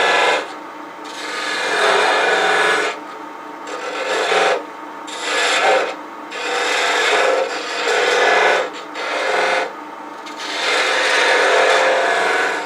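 Turning tool cutting a Spanish cedar handle spinning on a wood lathe, in repeated passes of a second or two with short pauses between, rounding over the handle's end, and the lathe running steadily underneath.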